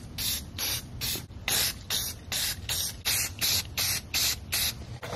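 Rust-Oleum aerosol spray paint can being sprayed in short, quick bursts, about three a second, stopping near the end.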